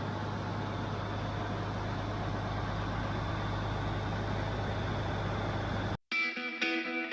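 A farm machine's engine running steadily at a constant speed with a low hum. About six seconds in it cuts off abruptly and rock music with distorted electric guitar starts.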